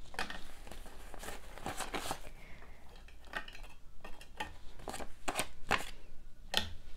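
Paper dollar bills being handled, with rustling and flicking and many scattered light clicks and taps as the bills are slotted into a clear acrylic holder.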